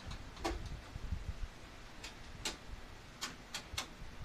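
Screws and hand tools being worked at a truck's grille: about six sharp, irregular clicks and taps, three in quick succession near the end.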